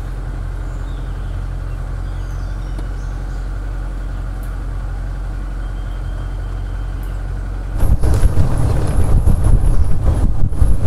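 Gypsy safari jeep's engine idling steadily while stopped, then pulling away about eight seconds in. The engine and the rumble of the jeep over the dirt trail become suddenly much louder and uneven.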